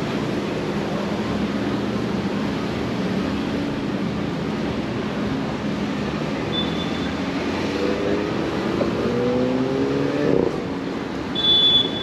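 Street traffic with a passing motor vehicle whose engine rises in pitch as it accelerates, from about eight seconds in until it stops abruptly near ten and a half seconds. A short high-pitched beep sounds near the end.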